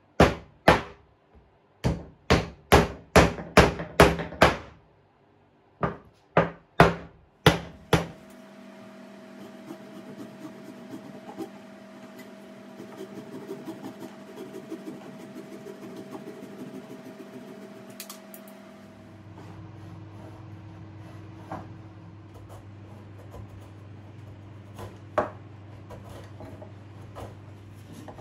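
Runs of sharp mallet or hammer blows on wood, two to three a second, over the first eight seconds. Then a much quieter steady hum with faint scraping and a few light taps.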